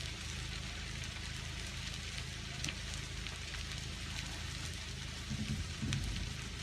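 Wood-frame house fully ablaze: a steady crackling hiss from the burning studs, with occasional sharp pops of burning wood and a low rumble underneath. A few louder low rumbling bursts come about five seconds in.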